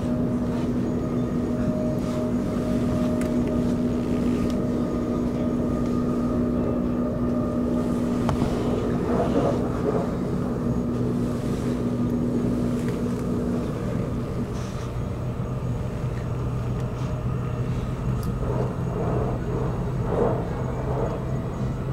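Electric commuter train running: a steady rumble with a motor hum. One of the hum's tones stops a little past halfway.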